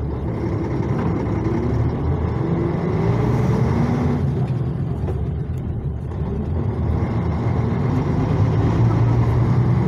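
Karosa LC735 coach's diesel engine running under way, heard from inside the cabin: a steady low drone with road noise, growing louder toward the end.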